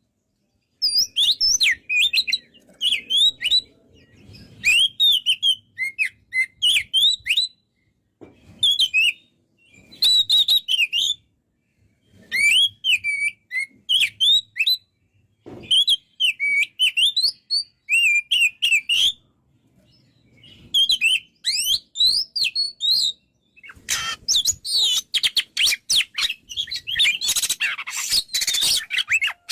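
Oriental magpie-robin (kacer) in full song: short phrases of rapid, varied whistled notes repeated with brief pauses between, running into a dense unbroken stream of notes near the end.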